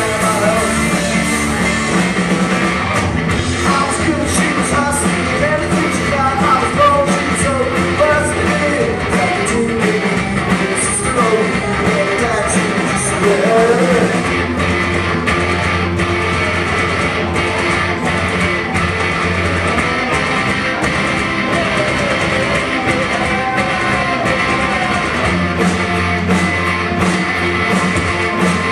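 Live rock band playing: guitars, bass and a singer, with steady sharp hits through it.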